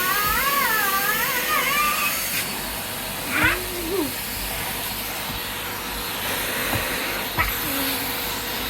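Vacuum cleaner running steadily, with a high, wavering, meow-like warble swooping up and down over it for about the first two seconds and a few short squeaky glides later.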